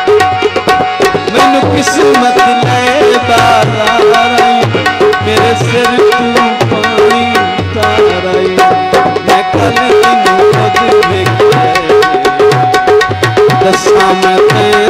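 Live Punjabi folk song: a harmonium holds a drone under a man's singing voice, and a dholak hand drum keeps a steady, quick rhythm.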